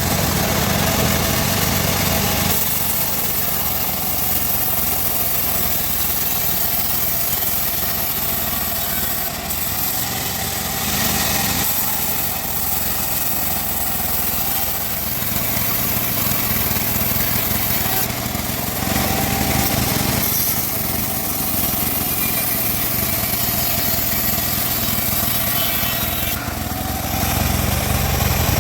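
Bandsaw running steadily as it cuts timber: a continuous loud machine drone whose low hum shifts in level a few times, as the load changes between cuts.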